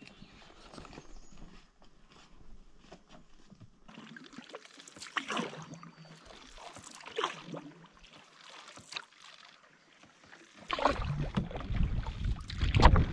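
Canoe paddle strokes: the blade dips and pulls through calm water in separate swishes about every two seconds, after faint footsteps on a dirt trail at the start. A loud low rumble takes over near the end.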